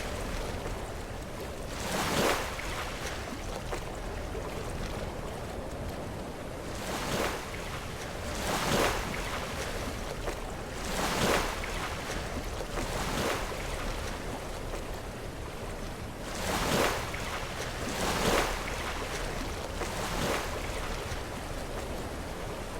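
Sea waves breaking against shore rocks: about eight short crashing surges at uneven intervals, over a steady wash of surf.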